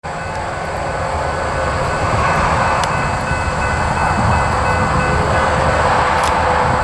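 An approaching Norfolk Southern GE ES40DC diesel locomotive hauling a double-stack freight train: a steady rumble and hiss that grows slightly louder as it comes closer.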